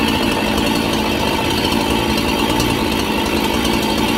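Husqvarna 346 XP two-stroke chainsaw engine running at a steady speed, with no revving.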